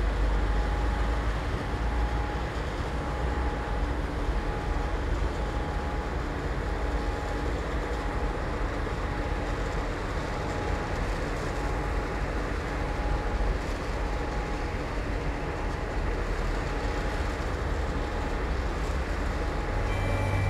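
Heavy machinery running with a steady, loud roar and a deep rumble, a faint steady tone riding above it.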